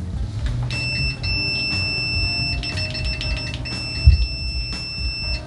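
Sanwa CD772 digital multimeter's continuity beeper sounding a steady, high-pitched, loud beep as the test probes make contact. It starts a little under a second in, cuts out for about a second midway, then resumes and stops shortly before the end.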